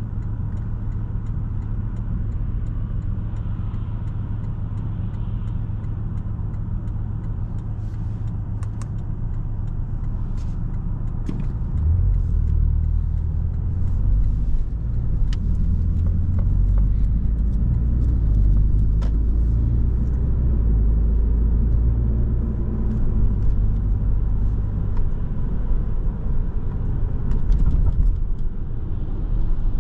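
Porsche 718 Boxster S's turbocharged 2.5-litre flat-four running as the car drives. About twelve seconds in it gets louder under more throttle, and its pitch shifts in steps from there on.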